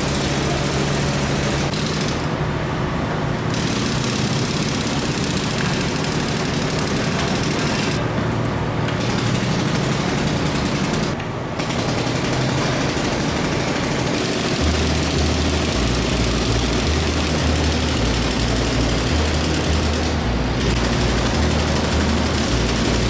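Demolition breaker hammering rapidly and continuously at masonry, pausing briefly a few times, over the run of heavy site engines. A low pulsing throb sets in about two-thirds of the way through.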